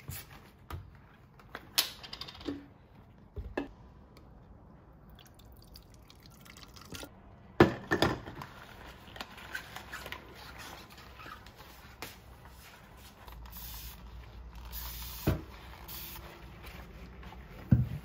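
Kitchen cleaning and handling sounds: scattered knocks and clinks of items being set down and moved, with one louder knock about eight seconds in, and three short hissing bursts near the end.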